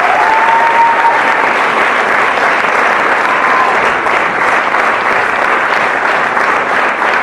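Audience and performers applauding together, a dense, steady clapping at an even level.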